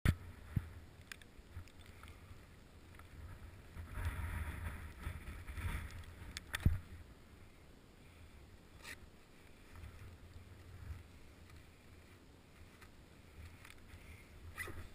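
Muffled handling noise from a chest-mounted GoPro on a skier standing in place: ski-clothing rustle and scattered clicks and knocks from poles and skis shifting on snow, over a low rumble. A louder scuffling stretch comes about four to six seconds in, followed by a sharp knock.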